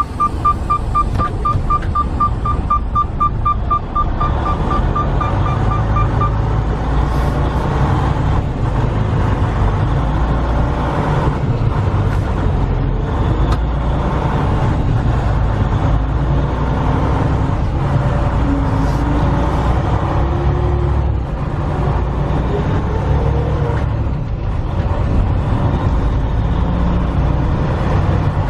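Low, steady rumble of a 2019 Freightliner Cascadia semi truck's DD15 diesel engine and road noise while it is driven. A rapid, high warning chime beeps several times a second and stops about six seconds in.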